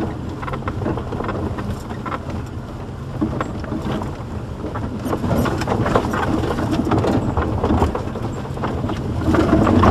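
Jeep's engine running steadily at low speed while the cabin rattles and knocks over a rough, puddled dirt track, heard from inside the vehicle. It grows louder in the second half.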